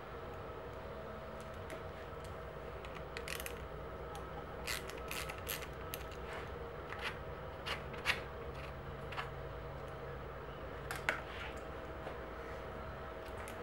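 Scattered light clicks and taps of small hand tools and metal parts as a hydraulic brake lever's clamp is undone and the lever is slid off a bicycle handlebar. Two louder clicks come about eight and eleven seconds in, over a steady low hum.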